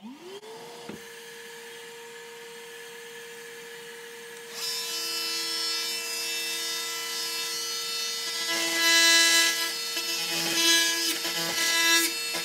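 A Milwaukee Fuel Packout cordless vacuum switches on, its motor whining up to speed within the first second and then running steadily through the dust collector. About four and a half seconds in, a Milwaukee oscillating multi-tool starts buzzing over it. Near the end its blade cuts into the wallboard, and the buzz grows louder and rougher.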